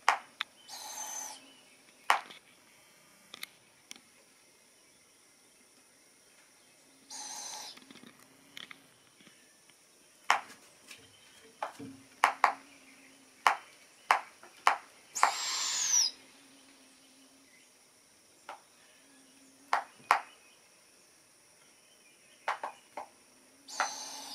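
Young barred owls giving raspy, hissing calls, about four of them spread out, each half a second to a second long, the longest and loudest about two-thirds of the way in. Many sharp clicks are scattered between the calls.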